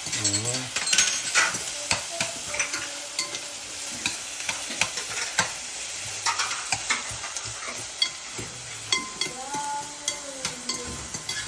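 Onion frying in olive oil in a pan on high heat, sizzling steadily, while a utensil stirs it with frequent small clicks and scrapes against the pan.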